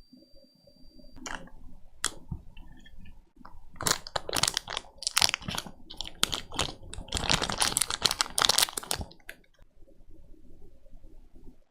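Computer keyboard keys being typed: two single clicks, then a fast, dense clatter of keystrokes lasting about five seconds.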